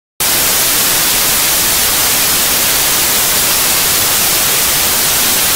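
Loud television static: an even white-noise hiss, strongest in the highs, that starts suddenly a moment in and holds at a constant level.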